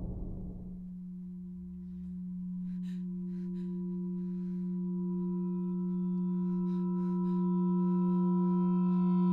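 A loud rumble dies away in the first second. A steady, low, ringing drone tone, like a singing bowl, then swells slowly louder as higher overtones join in: horror-film sound design building tension. A few faint clicks fall about three seconds in and again around seven seconds.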